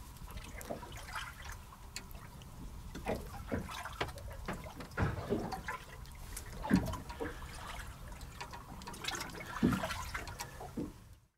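Water lapping and slapping against the hull of a small boat at sea: soft, irregular sloshing with a few louder slaps.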